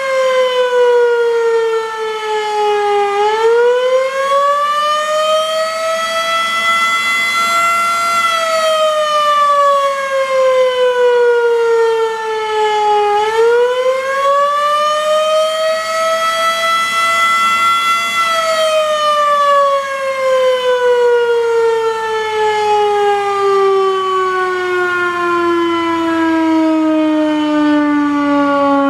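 Federal Enterprises Model 5 outdoor warning siren sounding the attack signal: its loud wail falls and rises twice in slow cycles of about ten seconds. About two-thirds of the way in it starts a long, steady fall, dropping lower than before as the siren winds down.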